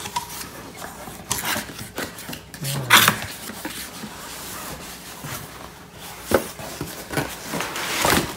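Cardboard box being handled and unpacked: the flaps and sides scrape and rub, with a few sharper knocks of the box at irregular moments.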